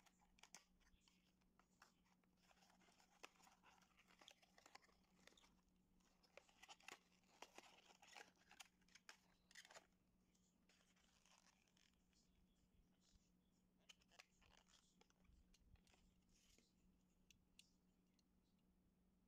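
Faint scratching, tearing and rustling as the sealed edge of a small cardboard model box is slit with a pointed tool and the box opened, busiest in the first half. It gives way to sparser clicks and crinkles of a clear plastic blister tray as the 1:64 diecast model car is lifted out. A low steady hum runs underneath.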